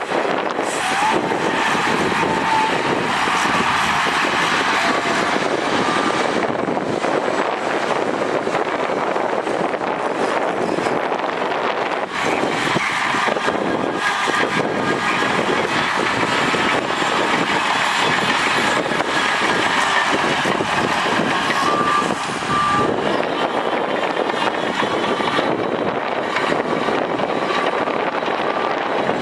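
Heavy earthmoving machines' diesel engines running steadily under work, with a few short high beeps faintly over them.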